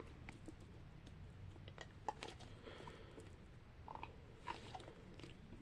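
Faint, irregular small clicks and crinkles of plastic fidget toys being handled and sorted by hand.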